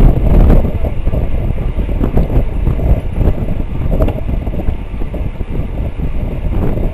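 Wind buffeting the microphone of a bicycle-mounted camera riding at about 23 mph: a loud, uneven rumble that is a little louder in the first half second.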